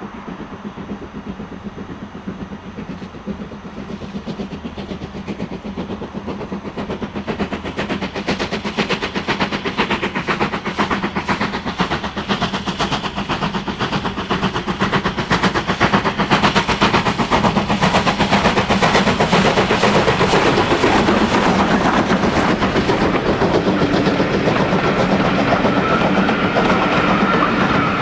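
Steam locomotive working a train past, its rapid even beats growing louder as it approaches and then holding steady.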